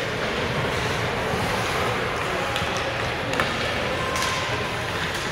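Steady rink noise of youth hockey players skating on the ice, with one sharp crack of a stick striking the puck about three and a half seconds in.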